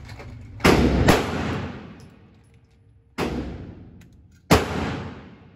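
Four gunshots: two about half a second apart near the start, then two more about a second and a half apart. Each has a long echoing tail.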